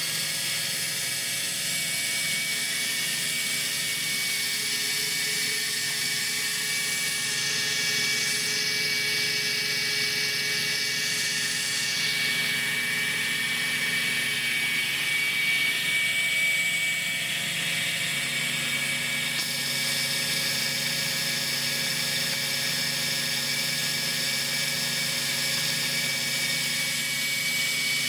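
Vintage Emesco 90N dental drill's electric motor running steadily at speed, a constant high whine with no change in pitch.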